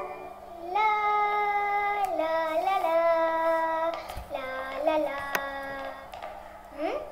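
A young girl singing "la la, lalala, lalala" on a simple tune of held notes, stopping about six seconds in.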